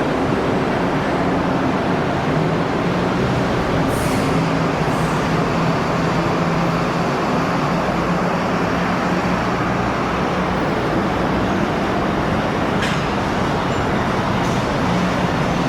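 Steady city street traffic noise, dense and continuous, with a low engine hum running under it and a few faint clicks.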